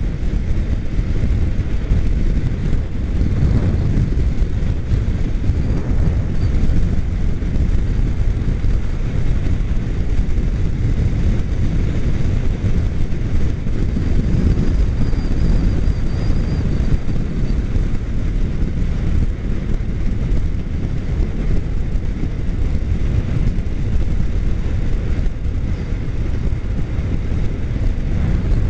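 Motorcycle riding at highway speed: a steady, loud rush of wind and engine noise.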